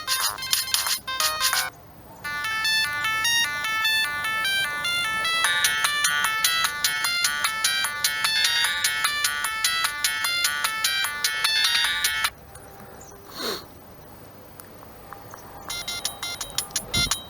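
Siemens M65 mobile phone ringtones played one after another. A short rhythmic tone ends early on, and then a ten-second polyphonic melody of short stepped beeping notes plays. After a pause with one brief falling sweep, a new rhythmic clicking tone starts near the end.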